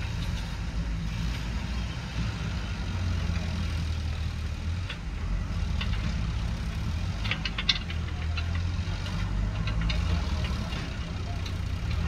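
JCB backhoe loader's diesel engine running steadily at a low, even pitch as the machine manoeuvres, with a quick run of sharp clicks or clanks about seven seconds in.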